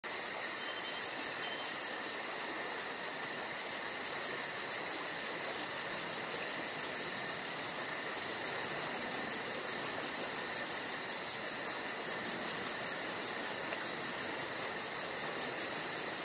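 A steady chorus of chirping insects: a constant high hum with a fast, evenly repeating pulse over it.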